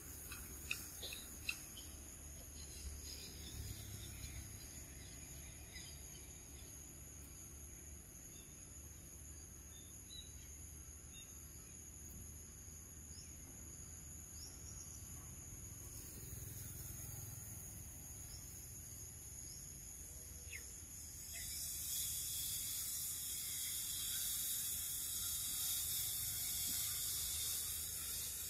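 Insects droning steadily in a high, even chorus. About two-thirds of the way through, a louder, harsher insect buzz joins in and carries on to the end. A few faint clicks near the start.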